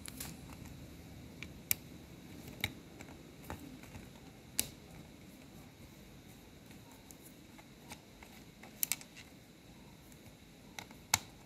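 A small screwdriver working screws out of a plastic computer keyboard's back case: a handful of scattered sharp clicks and taps of metal against plastic, the loudest near the end.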